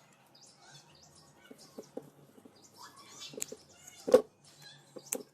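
Light clicks and taps of parts and tools being handled, with a sharp knock about four seconds in and a second one just after five seconds; faint high squeaks in between.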